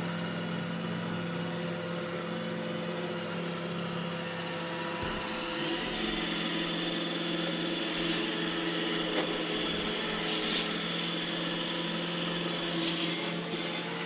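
iRobot Roomba E6 robot vacuum running, a steady motor hum with a high whine. About five seconds in a low rumble joins and the whine grows a little stronger, with a few light knocks later on.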